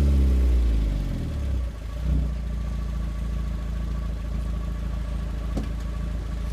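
Citroën Saxo VTR's four-cylinder engine through a full Scorpion exhaust, revs falling away after a rev. There is a short blip about two seconds in, then it settles into a steady idle.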